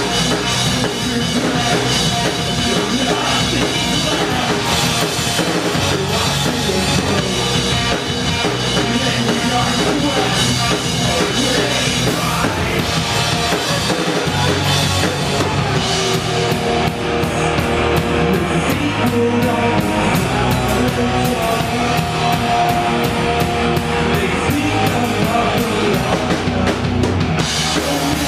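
Live rock band playing: electric guitars, bass and a drum kit. About halfway through the cymbals drop back to leave sustained guitar lines, then crash back in near the end.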